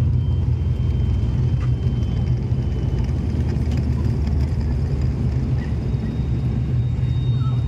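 Turboprop airliner's engine and propeller heard from inside the cabin, a steady low drone as the plane taxis on the runway after landing, with a faint high whine above it.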